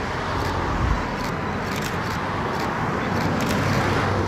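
Approaching train: a steady rumble that slowly grows louder, with light ticks about twice to three times a second.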